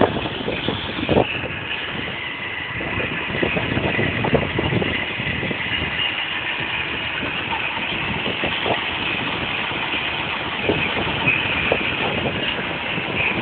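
Romet Pony 'Motorynka' moped's small two-stroke engine running steadily while it cruises along the road.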